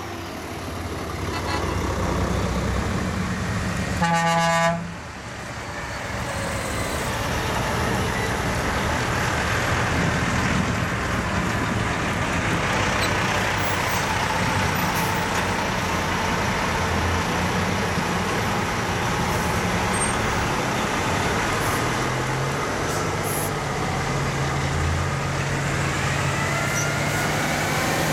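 Line of heavy trucks driving past one after another, with diesel engine and tyre noise throughout. One truck sounds its horn once, a short blast of under a second, about four seconds in.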